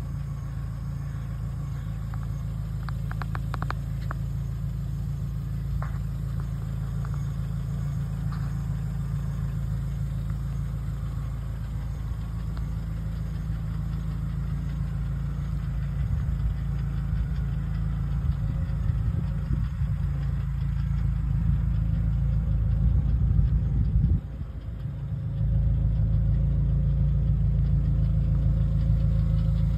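Nissan Atlas fire truck's engine idling steadily, a low even hum, with a rougher low rumble mixed in during the second half.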